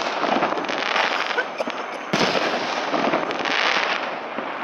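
Many fireworks going off at once: dense, rapid crackling and popping of aerial bursts and firecrackers, with a fresh, louder volley starting about two seconds in.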